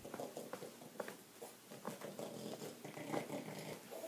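French bulldog rubbing its face along a carpet: a run of faint scratchy scuffs and rustles.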